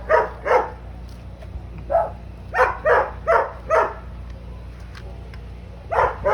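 A dog barking in short, sharp yaps: two, then a run of five about two to three a second, then one more near the end, over a steady low hum.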